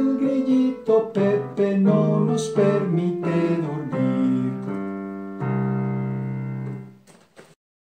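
Piano playing the closing phrase of a children's song: a run of notes, then a final chord held for about a second and a half before it stops near the end.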